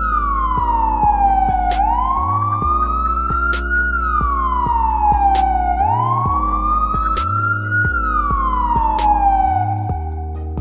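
Police siren wailing, its pitch sliding slowly up and down about every four seconds, over background music with a steady beat and bass line.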